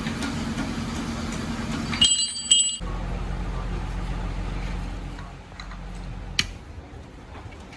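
A steady low mechanical hum, like an engine running. About two seconds in it breaks off briefly while a high ringing sounds, then it resumes, fades somewhat, and a single sharp click comes near the end.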